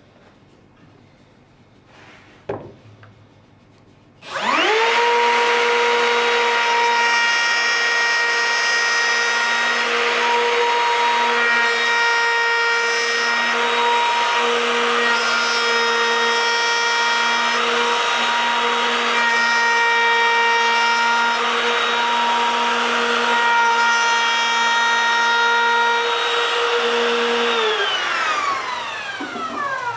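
A single knock, then a plunge router switched on, spinning up with a rising whine to a steady high pitch while it cuts along a wooden leg guided by an edge fence. Near the end it is switched off and the whine falls away as the motor spins down.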